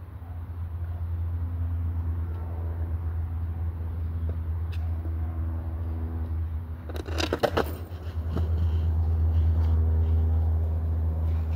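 Skateboard wheels rolling on concrete with a steady low rumble, broken about seven seconds in by a quick cluster of sharp board clacks and knocks, then rolling on.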